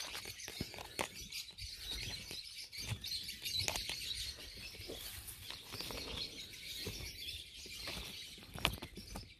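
Birds chirping in the background, with scattered small clicks and scrapes of a hand tool picking at rotted wood and soil in the hollow of a Chinese elm's dead wood.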